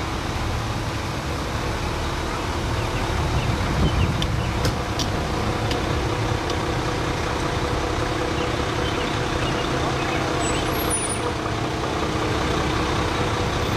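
Fire engine's diesel truck engine running steadily as it rolls slowly past at parade pace, a low rumble with a steady engine drone.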